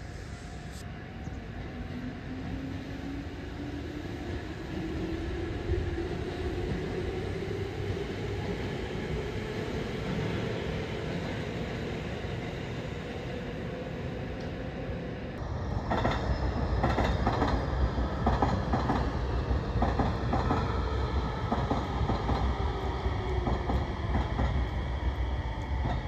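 Electric commuter trains. First a Tobu Urban Park Line train pulling away, its motor whine rising in pitch and then fading. About fifteen seconds in, a Tsukuba Express train runs along the elevated track, its wheels clattering over the rail joints over a low rumble.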